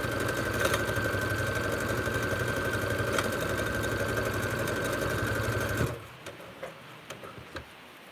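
Electric sewing machine stitching at a steady speed, a steady whine over rapid, even needle strokes, sewing a long gathering stitch down a dish towel. It stops abruptly about six seconds in, leaving only faint rustling of fabric.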